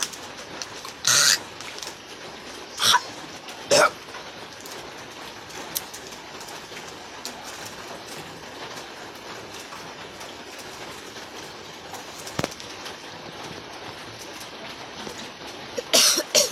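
A person retching and coughing, making deliberate vomiting sounds and spitting. Three loud, short hacking retches come within the first four seconds, then a long stretch of steady hiss from heavy rain, and another cluster of retches near the end.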